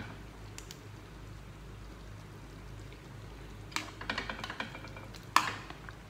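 Light clinks and scrapes of a serving spoon against the pan and plate while stew is dished out: a few faint clicks about a second in, a quick cluster of clinks a little before the end, then one sharper clink near the end, over a steady low hum.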